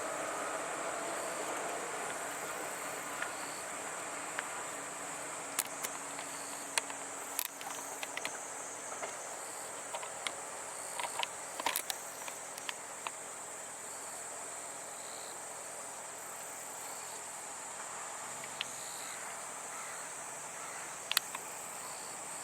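Insects chirring in a steady high-pitched drone, with the last of a passing train's noise fading away over the first several seconds. Scattered faint clicks are heard in the middle.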